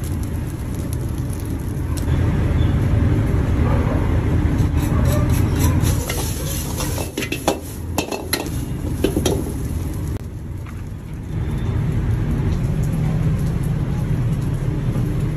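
Stir-frying fried rice in a large wok: a steady low roar under a metal ladle clattering, scraping and knocking against the wok, the strikes thickest in the middle.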